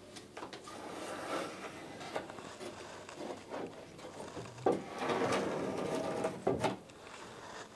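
A plywood centreplate case side being handled and set in place against wooden ledgers in a dinghy hull: small knocks and scraping of wood on wood, with a louder stretch of rubbing for about two seconds near the middle that starts and ends with a sharp knock.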